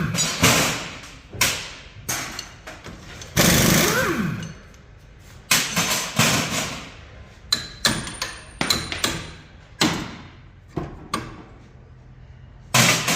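Irregular hammer blows, about fifteen separate strikes, some leaving a brief metallic ring.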